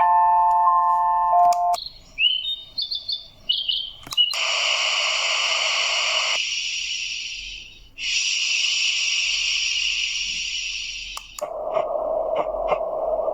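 Baby sleep soother's small speaker stepping through its sounds: a chiming lullaby melody, then a few seconds of bird chirps, then a long stretch of high hissing white noise broken briefly near the middle, and finally a lower rushing noise with a few clicks.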